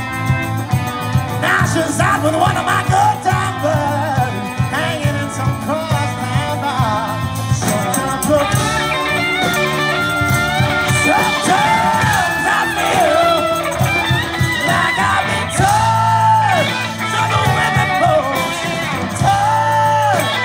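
Live rock band playing a song, with keyboards, electric guitar and sung vocals. The singer holds several long notes that bend up and back down in pitch.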